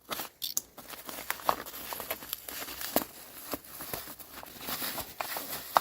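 Packing material crinkling and rustling by hand, with many scattered small clicks, as an item is unwrapped from a box.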